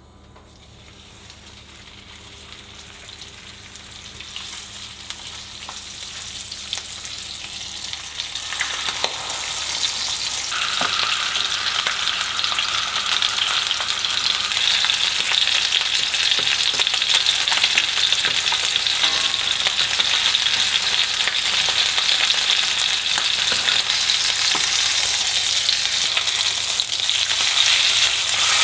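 Chicken frying in a hot pan. The sizzle swells steadily over the first dozen seconds, then holds loud and even, with a few light clicks about eight to ten seconds in.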